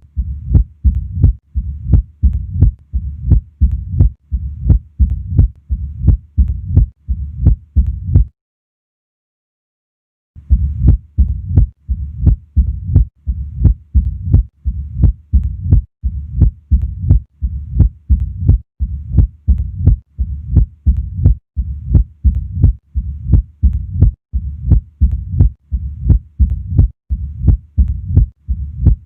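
Heart with mitral stenosis heard at the apex: a steady run of sharp heartbeats with a low rumbling murmur between them, the sign of the narrowed mitral valve. The sound cuts out for about two seconds around eight seconds in, then the beats resume.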